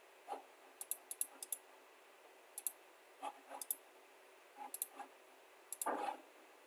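Computer mouse buttons clicking, several times, often in quick pairs or triples, with a short duller sound near the end.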